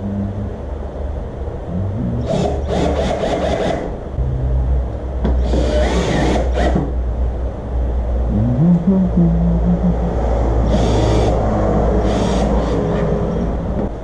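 Cordless drill/driver driving screws, its motor whirring at changing speeds and rising in pitch partway through, with several short, harsher bursts.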